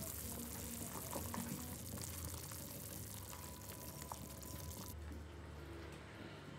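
Vegetable soup boiling in a heat-resistant glass pot: a steady bubbling hiss that drops away about five seconds in.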